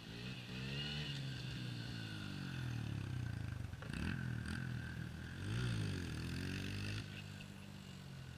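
Small dirt bike engines revving up and down repeatedly as the bikes ride around, with a couple of sharp clicks about four seconds in.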